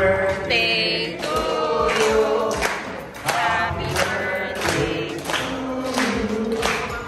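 A group of people singing a song together in unison, with hand claps keeping time.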